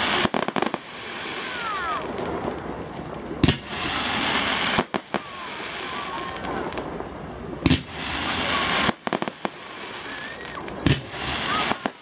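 Aerial fireworks display: three loud shell bursts about every three to four seconds, with clusters of quick cracks between them. A continuous hiss of burning and falling stars fills the gaps.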